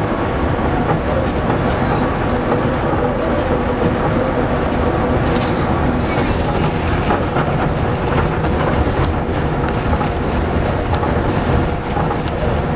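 Astram Line rubber-tyred automated guideway transit car running at speed along its concrete guideway, heard from inside at the front: a steady rumble of tyres on concrete with a steady whine over it.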